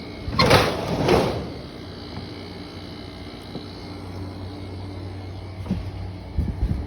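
Kenmore 10,000 BTU casement air conditioner running with a steady hum from its Tecumseh rotary compressor and fan. Two short loud scraping noises come about half a second apart near the start, and a few light knocks come near the end.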